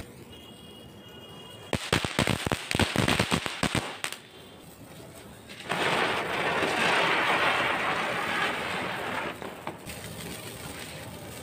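Small Diwali ground fireworks: a quick run of sharp crackling pops lasting about two seconds, then, after a short lull, a steady hiss for about four seconds as a flowerpot fountain sprays sparks.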